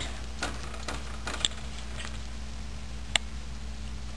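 A metal spoon spreading oil over a paratha in a nonstick frying pan, with a few light clicks of the spoon against the pan, the sharpest about a second and a half in and again about three seconds in, over a steady low hum.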